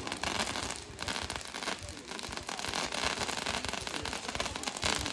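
Firework crackle: a dense run of many small pops with no large bang.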